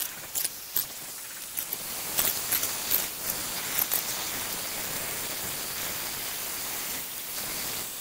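A utensil clinking and scraping against a stainless steel bowl while eating, several light sharp clicks in the first few seconds, over a steady background hiss.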